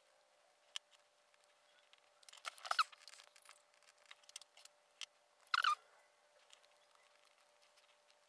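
Small metallic clicks and scrapes from handling a brass double euro lock cylinder and its cam, with two short bursts of rattling about two and a half and five and a half seconds in.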